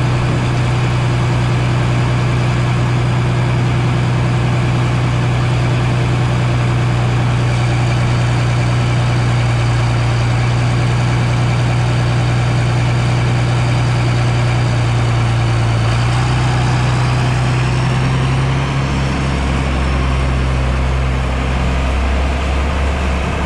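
Farm tractor's diesel engine running steadily with a low hum, slowing to a lower pitch about three-quarters of the way through.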